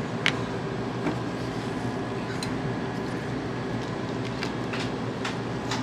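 Steady mechanical hum of a small kitchen's running machinery, with a few light clicks and taps scattered through it.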